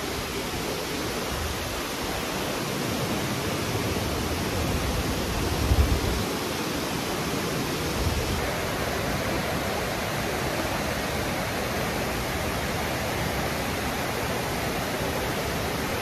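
Fukiware Falls, a wide, low waterfall on the Katashina River, rushing steadily over its rock ledge, heard up close. A brief low rumble rises about six seconds in.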